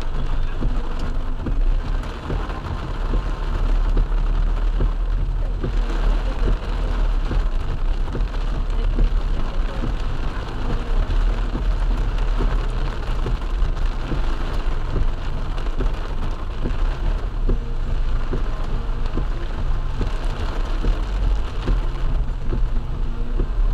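Heavy rain falling hard on a car's roof and windshield, heard from inside the car, with a steady low rumble underneath.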